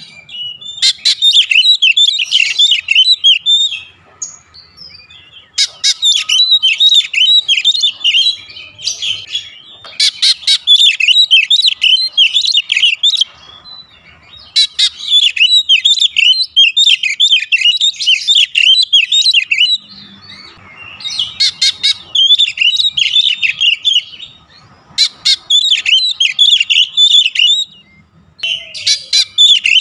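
Male oriental magpie-robin (kacer) in full song: loud bursts of rapid, varied chattering and whistled notes, each burst lasting a few seconds with short pauses between. It is the kind of lively song used as a lure track to get other magpie-robins singing.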